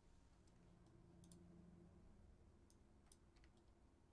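Near silence: faint room tone with a handful of soft, scattered computer mouse clicks.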